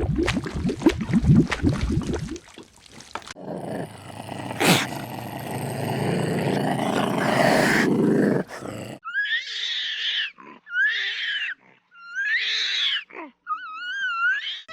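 Several different animal calls one after another: a deep pulsing call, then a long rough noisy call, then four short high-pitched calls that bend and waver in pitch.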